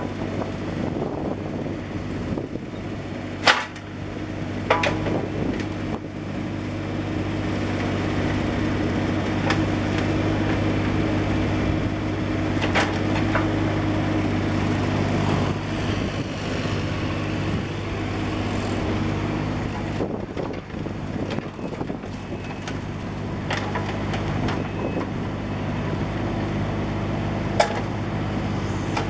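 Bobcat 328G mini excavator's diesel engine running steadily under varying load, with a few sharp knocks scattered through.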